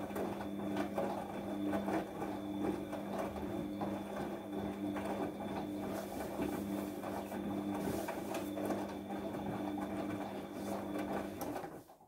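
Bosch front-loading washing machine's drum motor running in a wash tumble, a steady hum with wet laundry turning over in the drum. The motor cuts out suddenly near the end and the drum comes to rest.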